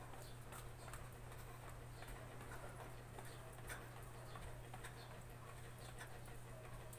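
Faint footfalls of someone jogging in place on a hard floor: soft taps about twice a second over a steady low hum.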